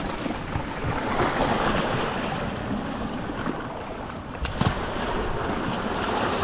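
Ocean surf washing and swirling over a rocky shoreline, a steady rush of water. A single sharp knock comes about four and a half seconds in.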